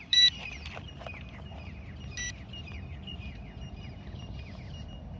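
Two short, high electronic beeps, a loud one right at the start and a fainter one about two seconds later, over birds chirping repeatedly with quick falling notes.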